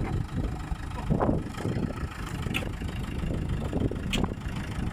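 JCB backhoe's diesel engine running steadily after its stalling fault was repaired, with a few short sharp clicks or knocks over it.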